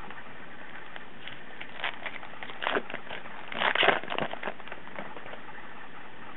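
Crinkling and rustling of a baseball card pack's wrapper being torn open, in a few short bursts, the loudest about four seconds in.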